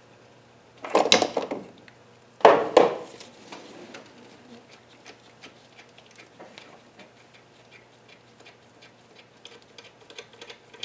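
Hand tools on engine hardware: two loud metal clanks about a second and two and a half seconds in, then a long run of faint, quick clicking.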